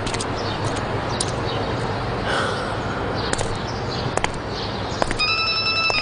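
Outdoor ambience with birds chirping over a steady hiss. Near the end a steady electronic tone sounds for under a second, from a mobile phone.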